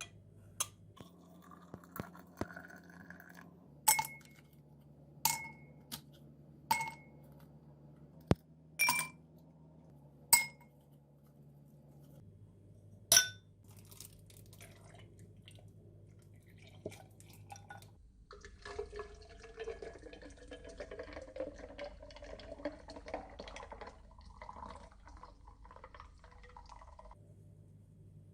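Glassware and dishes clinking in a series of sharp taps, each ringing briefly. Later comes a stretch of about nine seconds of liquid being poured.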